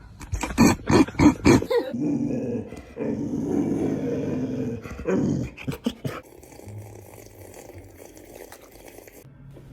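A dog growling, with a quick run of short, sharp sounds in the first two seconds, more growling, then quieter after about six seconds.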